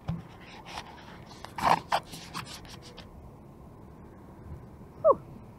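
A run of short rubbing and scraping noises, the loudest a little under two seconds in, then a brief squeak that falls in pitch near the end.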